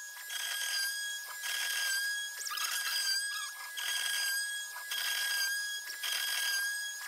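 DIY CNC router's spindle whining at a steady high pitch as its bit mills into wood. The cutting noise swells and drops every second or so as the tool moves along its path.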